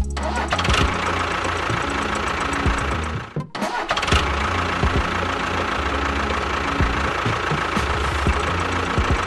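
A motor runs steadily with an engine-like pulsing, stops for a moment about three and a half seconds in, then runs again.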